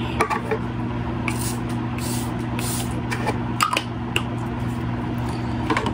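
Makeup setting spray misted from a pump bottle: a few quick hissing sprays about two seconds in, with a steady low hum underneath.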